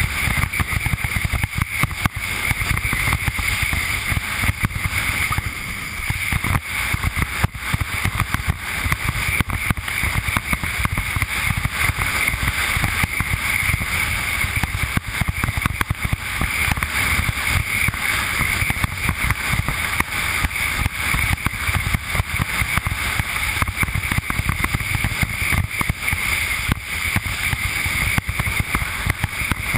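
Steady rushing wind buffeting the camera's microphone, mixed with the hiss and slap of water under a Fanatic Falcon slalom windsurf board planing at speed over chop.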